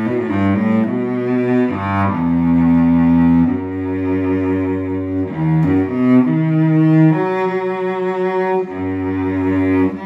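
Early 20th-century French cello, a 'Paolo Giacomelli' made by Jérôme Thibouville-Lamy for the Collin-Mezin workshop, played with the bow: a quick run of short notes near the start, then a slow line of long held notes.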